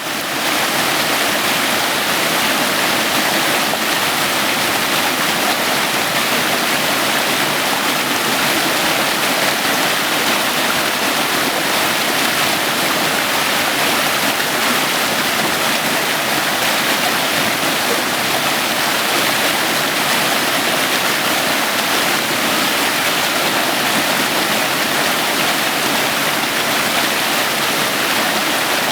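Waterfall: a loud, steady rush of falling water, even throughout.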